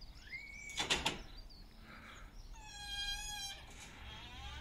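A powered Ricon wheelchair lift at a van's rear doors unfolding its platform: a clunk about a second in, then a low motor hum. A high, steady whine lasting about a second comes near the middle.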